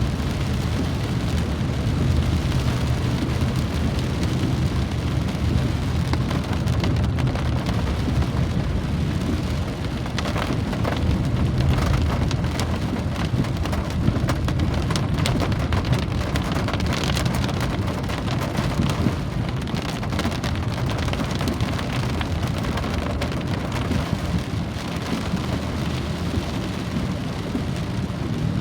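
Steady rain falling, with separate drops pattering on a surface over a constant deep rumble.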